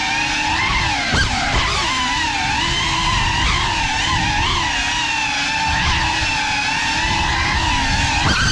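FPV quadcopter's brushless motors and propellers whining, the pitch wavering up and down as the throttle changes, heard close from the camera mounted on the drone itself.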